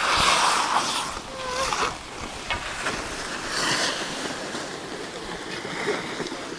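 Skis scraping and swishing over snow in a few passing rushes, loudest in the first second and again around four seconds in.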